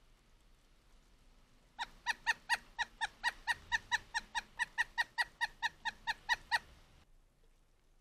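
Pileated woodpecker calling: a long, even series of about twenty loud, clipped notes, about four a second, starting about two seconds in and lasting some five seconds.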